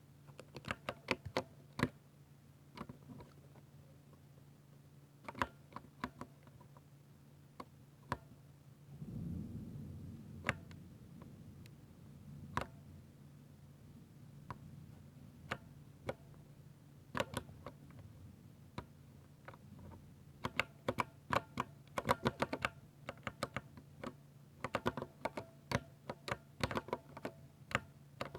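Typing on a Ducky 60% mechanical keyboard with silver switches: sharp key clicks, at first in scattered keystrokes and short runs with pauses, then a faster, denser run of typing in the last third.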